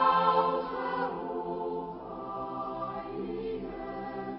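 A choir singing slow, long-held notes.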